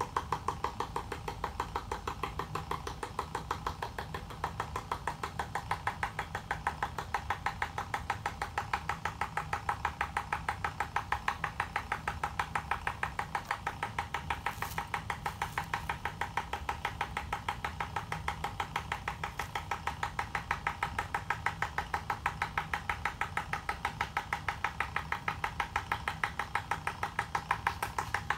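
High-voltage apparatus driving a glowing Lenard ray tube: its spark discharge or interrupter makes a rapid, perfectly even clicking, over a steady tone and a low hum.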